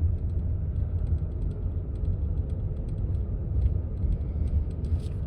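Steady low road and engine rumble inside a moving car's cabin, with faint small ticks and rattles over it.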